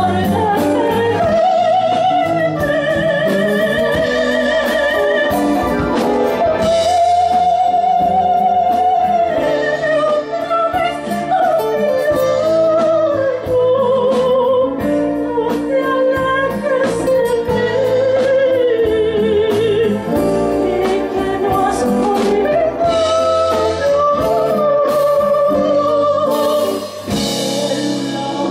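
Soprano singing a bolero with vibrato on long held notes, accompanied by a small band with piano and guitar.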